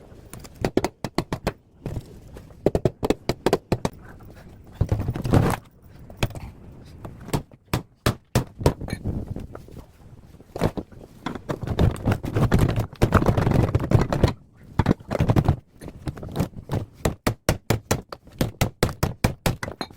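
Parts of a top-loading washing machine being knocked and pried apart: many irregular sharp knocks and thunks, with longer scraping stretches about five seconds in and again around twelve to fourteen seconds in.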